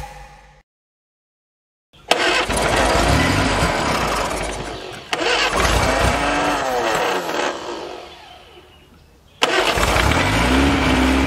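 Austin Mini's rebuilt A-series four-cylinder engine starting and running for the first time after restoration, heard in three short cuts that each begin abruptly. In the middle cut the revs rise and fall.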